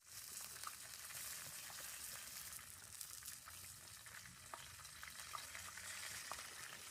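Smash burgers frying in a pan over a campfire, sizzling steadily with scattered small pops.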